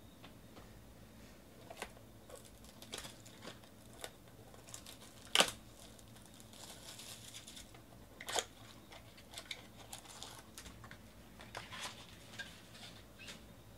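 Plastic trading card pack wrapper crinkling as it is handled and torn open, with scattered clicks and a few sharp snaps; the loudest comes about five and a half seconds in, another near eight and a half.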